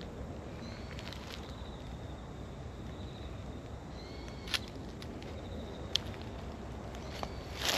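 Outdoor park ambience: steady low background noise with faint, high, wavering chirps. Two sharp clicks about midway and a rustle in the grass near the end.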